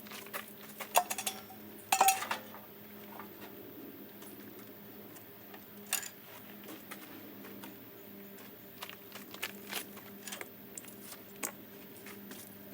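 Small metal objects clinking and clanking as they are handled, with two sharper metallic strikes about one and two seconds in that ring briefly. A faint steady hum runs underneath.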